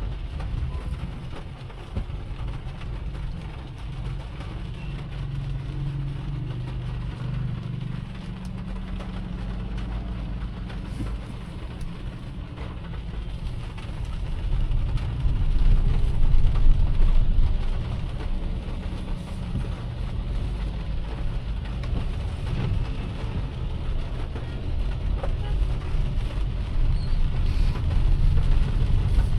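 Car driving: a low, steady rumble of engine and road noise that swells louder for a few seconds about halfway through.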